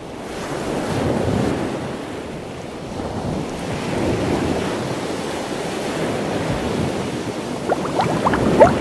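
Ocean water ambience: a rushing wash that swells and eases. Near the end comes a quick run of rising bubble blips.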